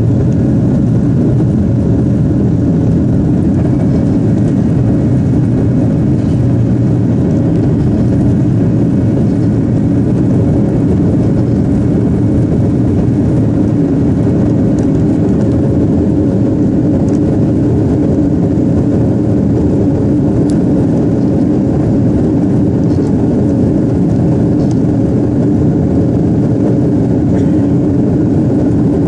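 Jet airliner cabin noise during the climb after takeoff: a loud, steady roar of the engines and rushing air, heard from inside the cabin, with a faint hum held at one pitch.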